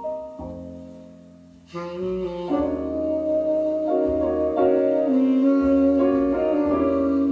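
Instrumental music from an FM radio broadcast, played at low volume through a Sansui AU-777A amplifier fed by a TU-999 tuner: a melody of held notes over a bass line, fading away about a second in and coming back fuller just before the two-second mark.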